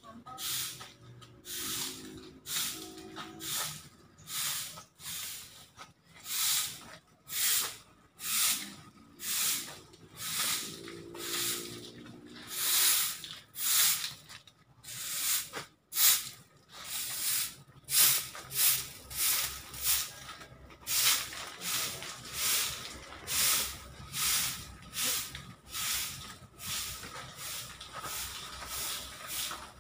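Repeated short hissing swishes, about one a second, over a faint steady tone.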